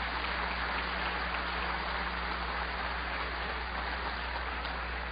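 Audience applauding: steady, even clapping with no break.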